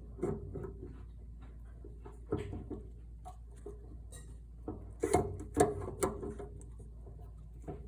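Scattered small clicks and knocks of the metal bars and linkage pieces of an Ironrite ironer's pedal assembly being handled and fitted together, with a louder cluster of knocks about five to six seconds in.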